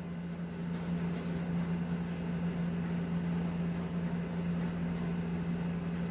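Steady low mechanical hum under a faint even hiss: room background noise with no other event standing out.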